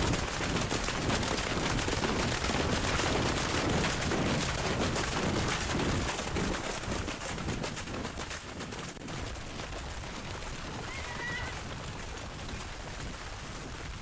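Several horses galloping through shallow seawater, their hooves splashing and pounding in rapid, irregular beats. The splashing is loudest for the first half and drops off after about eight seconds. A horse whinnies briefly near the end.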